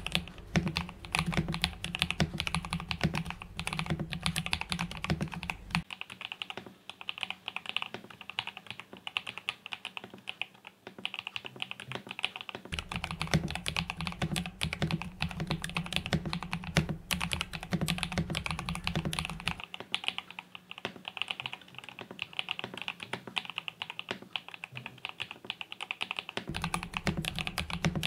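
Continuous fast typing on a Fantech Maxfit61 mechanical keyboard in a Tofu60-style acrylic case, fitted with KTT Kang White V3 linear switches lubed with Krytox 205g0: a dense run of keystrokes with the 'marbly pop' sound profile.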